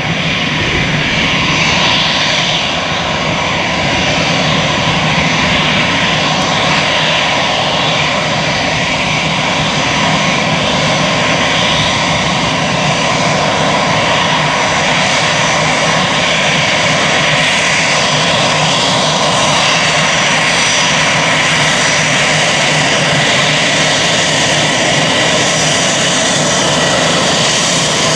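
Airbus A320-family airliner's turbofan engines running as the jet taxis close by: a steady whine with several held high tones over a low rumble.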